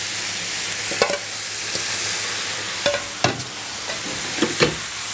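Chicken strips and vegetables sizzling in a hot frying pan just after teriyaki sauce has been poured over them, a steady hiss with a few sharp knocks from the food being moved in the pan.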